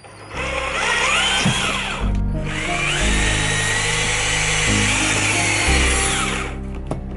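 Cordless drill boring pilot holes with a 4 mm bit in the campervan floor, in two runs of about two and four seconds, its motor pitch rising as it speeds up and falling as it slows, with a short pause between the runs.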